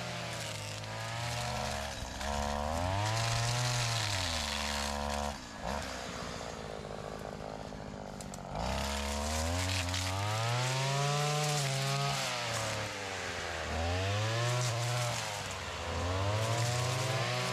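Brush cutter engine with a chain trimmer head, revving up and dropping back again and again as the spinning chains are swung into woody scrub, easing off for a couple of seconds in the middle.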